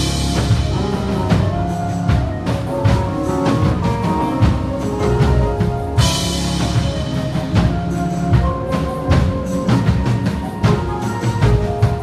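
Live band playing: a drum kit with busy fills and cymbal crashes, over bass guitar and held keyboard chords. Crashes hit at the start and again about halfway through.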